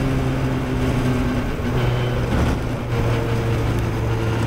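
A 1969 Macon MR7 Formula Ford's 1600 cc Ford Kent four-cylinder engine, heard from the cockpit with wind rushing past, running at easy part throttle as the car slows on its cool-down lap. The engine note shifts in pitch a little past halfway.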